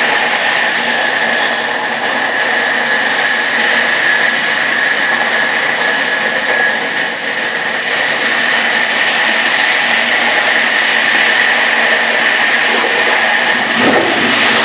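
Train running at high speed with a VR Sr2 electric locomotive coupled on: a steady rolling roar with a steady high whine over it, and a brief knock about a second before the end.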